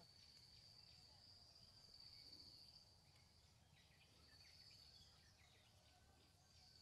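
Near silence: faint outdoor ambience with a thin steady high tone, like an insect's drone, and a few faint chirps.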